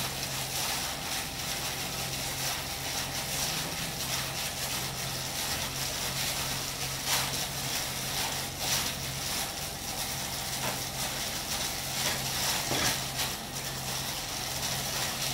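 Plastic-gloved hand mixing cooked rice moistened with shrimp paste in a ceramic bowl: soft, irregular squishing and rustling of wet rice and glove. A steady low hum runs underneath.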